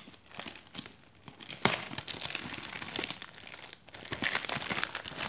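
Packaging being handled, crinkling and rustling in irregular crackly bursts, with a sharper crackle about a second and a half in.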